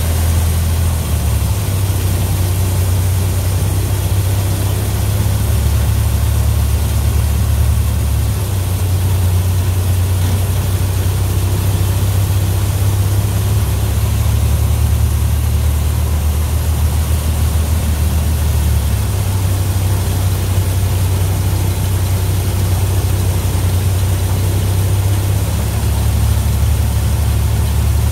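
A tractor engine runs steadily, driving a 1960s New Idea two-row corn picker with sheller through the corn, giving a low, even drone.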